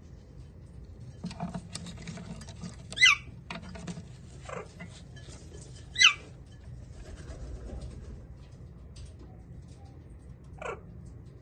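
Alexandrine parakeet giving four short, sharp calls that fall steeply in pitch, the two loudest about three seconds apart and two fainter ones after each. Scratchy rustling and clicks run through the first few seconds.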